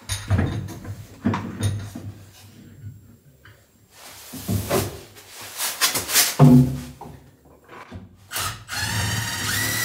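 Knocks and rubbing clatter from a radiant-heat manifold and its wooden backer being handled and fitted against the wall. Near the end a cordless drill spins up with a rising whine and then runs steadily.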